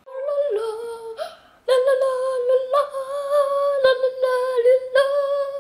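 A child humming in a high voice: a short wavering phrase, a brief pause, then a long, nearly level held note with a slight wobble and short breaks.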